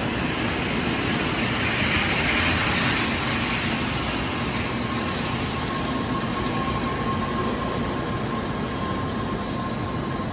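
N700-series Shinkansen train pulling into the station: a steady rush of running and wheel noise as the cars slide past, with a faint high whine that comes in about four seconds in.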